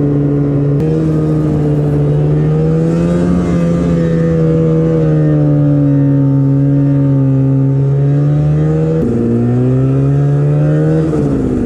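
1980 Polaris Gemini 244 snowmobile's two-stroke engine running under way at a fairly steady speed. Its pitch steps up about a second in, rises and eases gently, drops suddenly about nine seconds in, then climbs again near the end.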